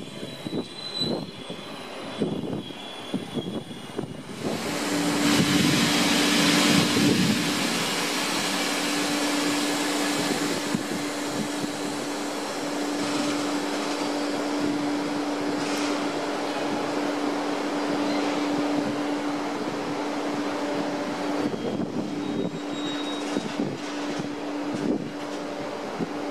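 Sr1 electric locomotive at a standstill or barely moving, its machinery giving a steady drone with one constant tone that sets in about four and a half seconds in. Before that, passenger coaches roll past with light wheel clicks.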